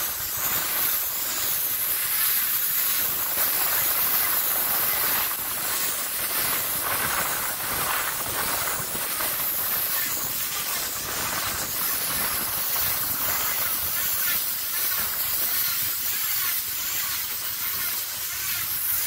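Bale wrapper turning a round bale and stretching plastic wrap film around it: a steady hiss.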